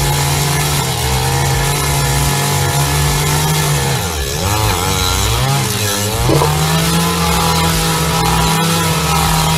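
Gas engine of a two-man earth auger running hard as it drills. Its pitch sags and wobbles about four to six seconds in as the bit bites and loads the engine, with a sharp knock just after six seconds, before it runs steady again.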